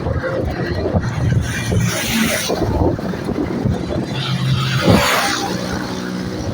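Motor vehicles passing close by on the road, with two louder passes: one about two seconds in and one about five seconds in. Under them runs a steady low rumble of traffic and wind.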